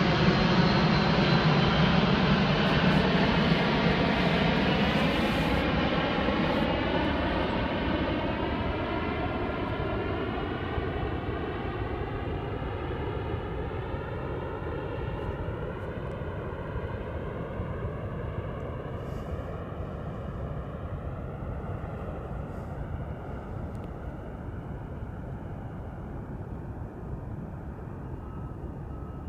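Airplane passing overhead: a loud, even rush with a slowly sweeping, phaser-like quality that gradually fades away.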